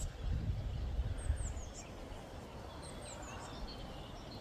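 A flock of small birds calling from the treetops: several groups of short, high chirps falling in pitch. Wind rumbles on the microphone underneath.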